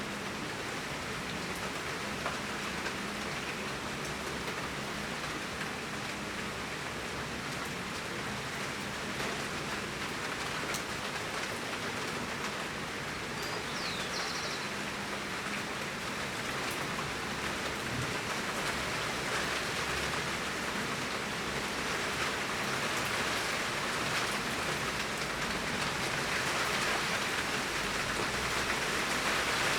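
Torrential rain pouring down, a dense, steady hiss of drops on surfaces that grows slightly louder toward the end.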